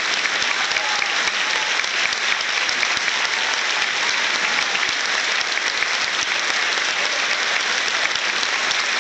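Audience applauding steadily: a dense, even wash of many hands clapping.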